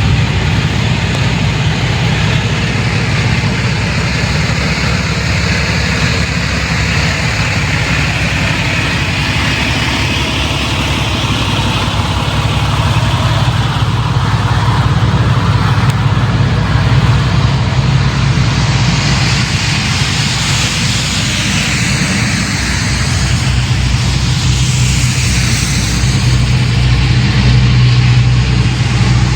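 Semi-truck under way: a steady diesel engine drone with road noise.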